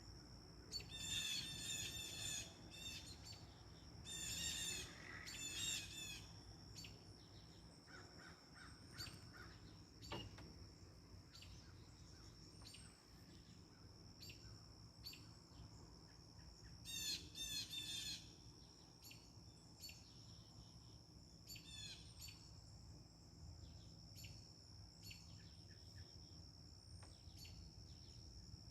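Backyard birds calling: loud bursts of rapid, repeated harsh notes in the first six seconds and again about seventeen seconds in, with scattered short chirps between, over a steady high-pitched tone.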